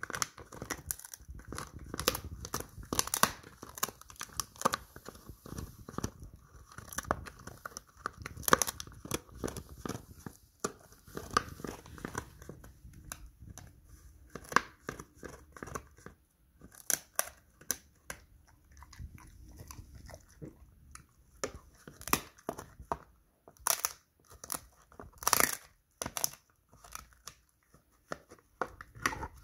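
A Border Collie chewing a crunchy pig ear: irregular sharp crunches and gnawing, busy for the first ten seconds or so, thinning out through the middle, with a few louder crunches about three-quarters through.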